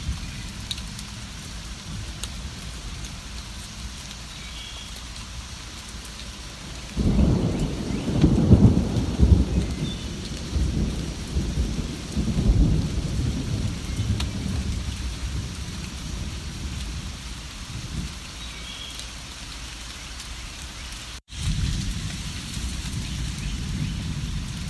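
Steady rain falling, with a long low roll of thunder that swells a few seconds in and rumbles away over about seven seconds. A few faint bird chirps sound over the rain, and the sound drops out for an instant near the end.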